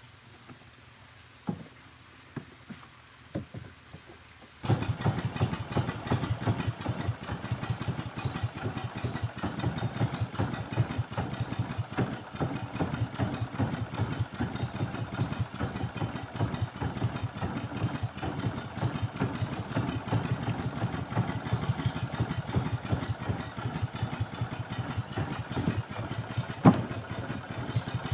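A small boat engine comes in abruptly about four and a half seconds in and runs steadily with a fast, even chugging, driving the boat along for trolling. Before it there are a few faint clicks, and there is one sharp click near the end.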